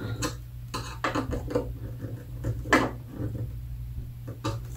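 Screwdriver tightening a hose clamp on a flexible plastic exhaust hose: irregular small clicks and scrapes of metal and plastic, the sharpest a little under three seconds in.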